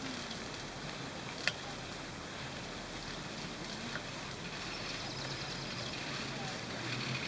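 Steady open-air hiss of a chairlift ride with a faint low hum, and one sharp click about a second and a half in.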